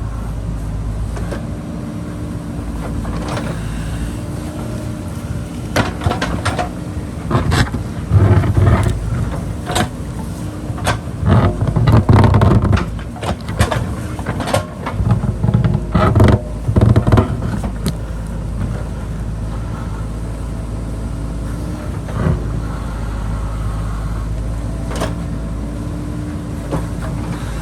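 JCB backhoe loader's diesel engine running steadily. From about six to eighteen seconds in it comes under heavier load, with a run of sharp knocks and clatter as the bucket digs and scrapes through soil and rock, then it settles back to a steady run.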